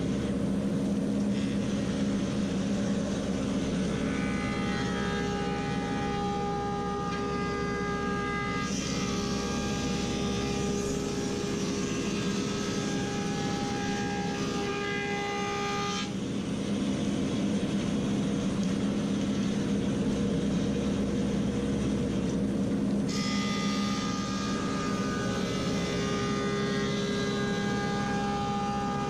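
Woodmaster 725 planer running steadily. Twice it cuts for several seconds at a stretch as boards feed through, adding a higher whine and hiss over the motor hum; each stretch stops abruptly.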